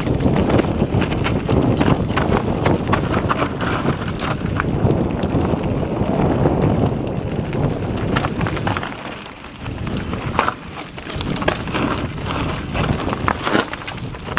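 Mountain bike ridden fast down a dirt trail: wind rushing over the microphone, tyres on dirt and the bike rattling over bumps with many sharp knocks. It quietens briefly about nine seconds in.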